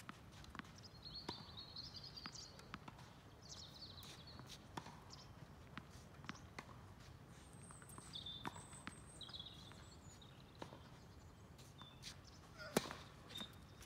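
Faint knocks of a tennis ball struck by a racket and bouncing on the court, a sharper hit near the end, with birds chirping at times in the background.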